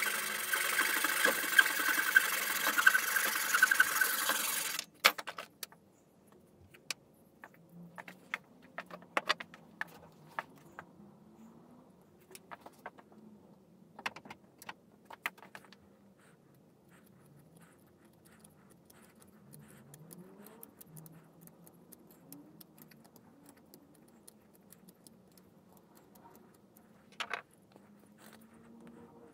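Flush-cut hand saw sawing through a wooden dowel, stopping abruptly about five seconds in. After that come only sparse light clicks and knocks of tools and wood being handled on the bench.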